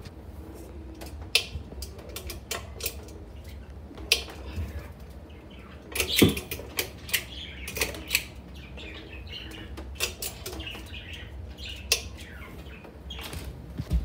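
Pull chain of a Hampton Bay Metairie 24-inch ceiling fan being handled: irregular clicks of the pull-chain switch and the metal chain rattling, thickest a little past the middle, over a low steady hum.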